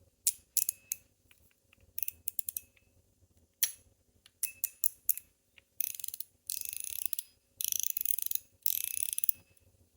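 Titanium-alloy fidget slider being worked along its tracks: sharp metal clicks in the first half, then four quick ratcheting rattles, each about half a second to a second long.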